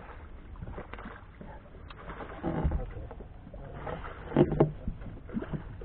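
Two dull knocks on a small metal fishing boat's hull as someone shifts about in it, about two and a half and four and a half seconds in, the second louder.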